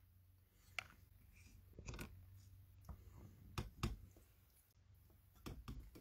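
Scattered faint clicks and knocks of a phone being handled and repositioned close to its own microphone, over a faint steady low hum.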